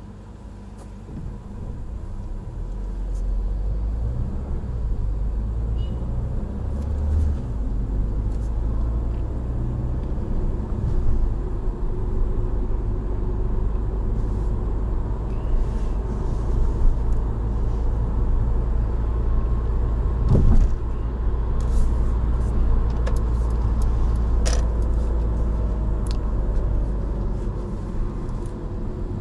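Inside the cabin of a Mercedes A-Class A 180d diesel hatchback on the move: low engine and road rumble that grows louder over the first few seconds as the car picks up speed, then holds steady at cruising pace. There are a few short knocks from the road or cabin, the clearest about two-thirds of the way through.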